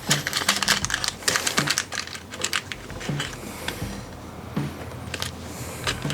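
Irregular light clicking and tapping of small objects handled on a workbench, with many quick sharp clicks in a row.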